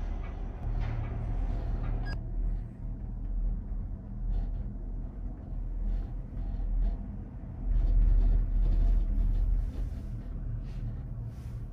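Low rumble and steady hum inside a moving cable car gondola. It grows louder for about two seconds around eight seconds in.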